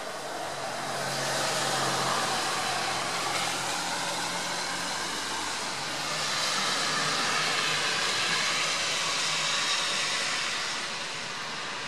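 Rain falling, heard as a steady hiss that swells about a second in, builds again around six seconds and eases near the end.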